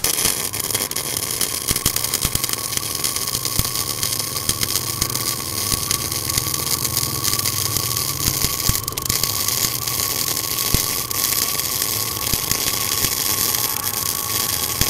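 Tenya MIG 265 welder laying a CO2-shielded MIG bead on 12 mm steel plate at about 230 A, close to the machine's maximum. The arc strikes right at the start and then keeps up a steady, dense spatter crackle with a faint steady tone under it, a very strong sound typical of high current on thick plate.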